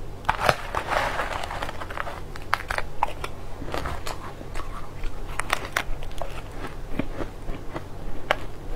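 A metal spoon scraping and scooping through crunchy pink and green food in a bowl, with crunching bites and chewing. The crackling is densest about a second in, followed by scattered sharp crunches.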